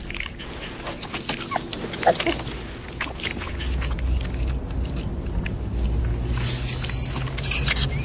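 Newborn puppy squeaking and whining, with soft wet clicks of its mother dog licking it. A thin, high squeal is held for about a second, about six seconds in, followed by more short squeaks.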